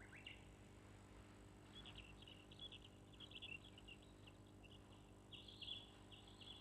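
Near silence with faint, high chirping in short quick runs, clustered about two seconds in and again near the end, over a low steady hum.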